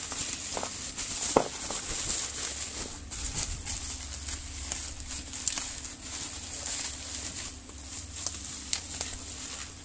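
Plastic bubble wrap crinkling and rustling as hands handle it and pull it off a small cardboard box, with irregular crackles throughout and a couple of brief squeaks early on.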